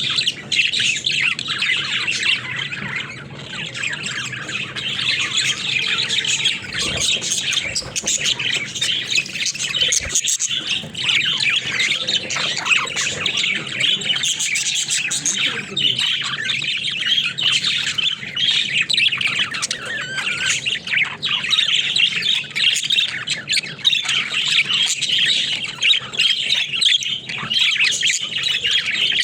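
Budgerigars chattering and chirping without pause, a busy mix of warbles, chirps and squawks.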